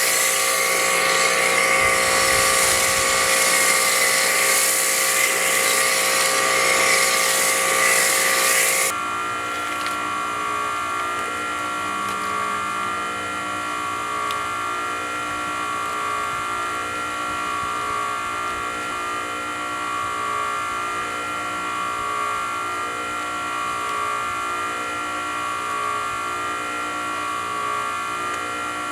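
An electric motor-driven tool running steadily with a whine. About nine seconds in the sound cuts abruptly to a quieter, steady motor hum.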